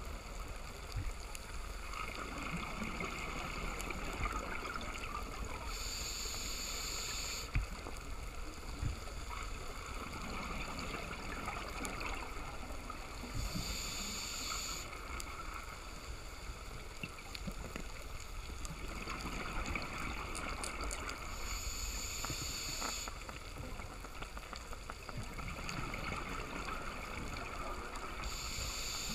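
Scuba diver breathing through a regulator, heard underwater: a hissing inhale about every seven to eight seconds, four times, with gurgling exhaled bubbles between.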